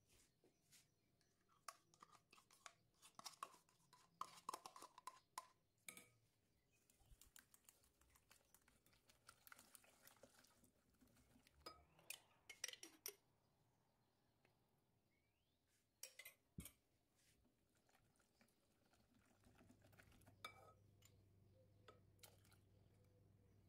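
Faint clicking and scraping of a metal wire whisk beating eggs, sugar and yogurt in a glass bowl, in irregular bursts over the first half, with a few more clicks later.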